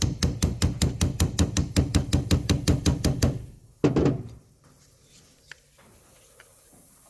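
Hammer rapidly tapping a pin punch against a stuck door-handle pivot pin, about six light metallic taps a second, stopping a little past three seconds in. One louder knock follows about a second later, then it goes quiet. The pin is seized and barely moves under the taps.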